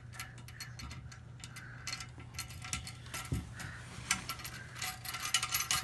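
Small metal clinks and clicks of washers and nuts being fitted onto a toilet tank's bolts by hand, coming faster in the second half, with one dull knock about three seconds in.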